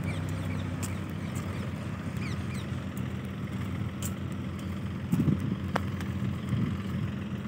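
Diesel tractor engine idling steadily, with a few bird chirps and a couple of light clicks.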